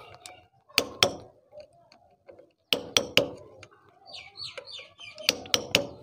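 Sharp metallic taps as a screwdriver is knocked against the lock washer on a Honda CD70's clutch centre nut to bend its locking tab back. The taps come in groups of two or three: about a second in, about three seconds in, and near the end.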